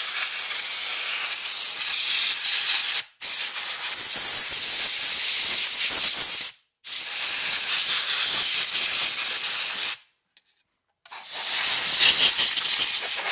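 Compressed-air blow gun with a long nozzle hissing in four long blasts, blowing dust out of a small electronic module. The air stops briefly between blasts, with a pause of about a second before the last one near the end.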